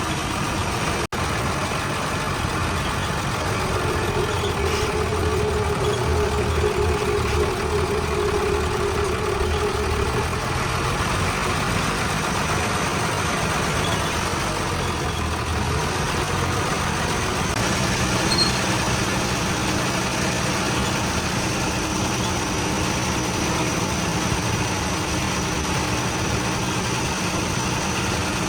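Heavy diesel engine running steadily, with a steady higher whine between about four and ten seconds in.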